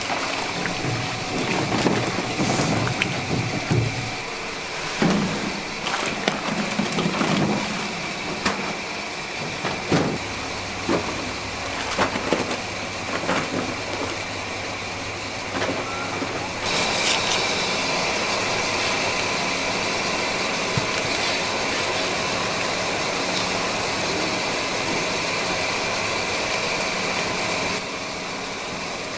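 Trimmed young coconuts tipped from plastic crates into a steel tank of hot water: repeated splashes and knocks of the crate against the tank over a steady machine hum. Past the middle the knocks stop and a steady hiss and hum remain.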